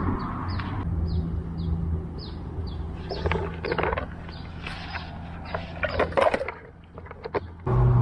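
A hard plastic bucket lid being lifted and handled: rustling and clattering strokes about three seconds in and again, loudest, about six seconds in. Under it, short high chirps repeat two to three times a second for the first five seconds over a steady low drone.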